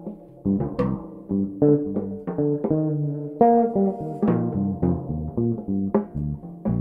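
Six-string electric bass playing a quick run of plucked jazz lines, with a drum kit accompanying.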